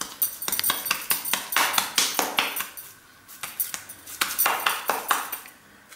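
Hands patting soft maize-flour dough flat into a makki roti: a quick run of soft slaps with light clinks, in two spells with a short pause about halfway.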